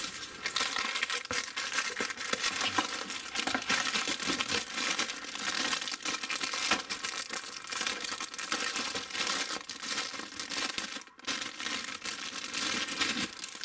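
Clear plastic bags crinkling and crackling as bagged plastic model-kit sprues are handled and shifted in their box, with a short lull about eleven seconds in.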